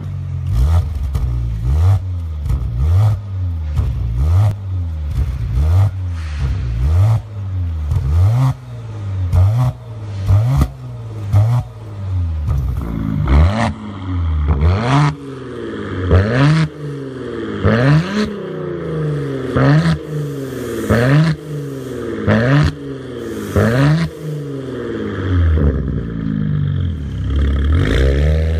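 Maserati Ghibli engine revved in repeated quick blips through an RES Racing aftermarket valved exhaust with quad tips, the car standing still, with sharp cracks at many of the blips. From about halfway the revs climb higher and come further apart, and near the end one long climb.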